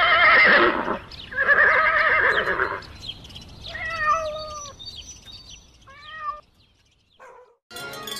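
A horse whinnying twice, two long, loud, wavering calls, followed by a cat meowing twice, shorter and quieter.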